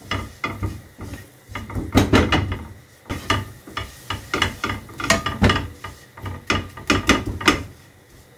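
Spatula scraping and stirring flour and butter around a non-stick frying pan in quick, irregular strokes, as the flour is fried in the melted butter for a white sauce.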